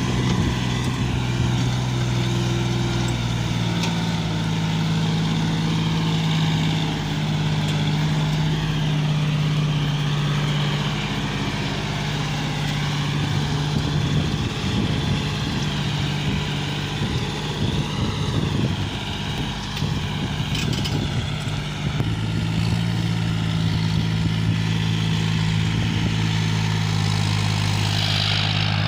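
Heavy diesel engine running continuously, its speed stepping up and down a few times, with a rougher, uneven stretch in the middle.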